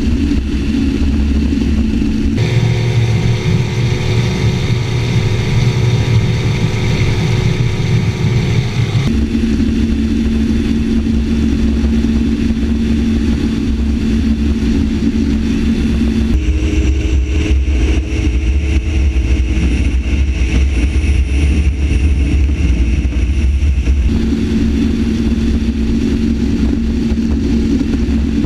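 Outboard motor on a tunnel-hull boat running steadily at speed, with water rushing under the hull. The engine's pitch shifts suddenly a few times.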